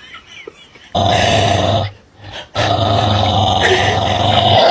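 A dog growling: a short growl about a second in, then a longer one.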